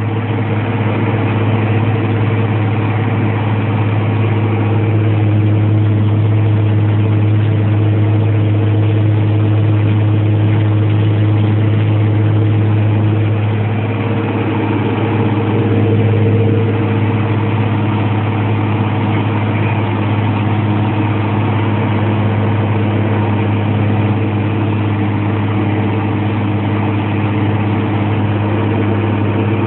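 Fendt 514C Turbo tractor's turbocharged diesel engine running steadily, a deep even drone that eases slightly about fourteen seconds in and then picks up again.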